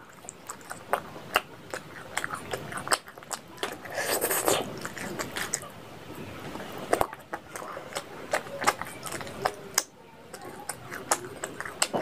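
Close-miked mouth sounds of a person eating curried meat by hand: wet chewing with many small, sharp lip smacks and clicks, a louder stretch about four seconds in.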